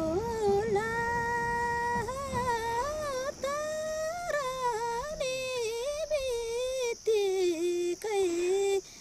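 A woman singing a Nepali folk song, drawing out long held notes with bending, ornamented turns between them, and pausing briefly near the end.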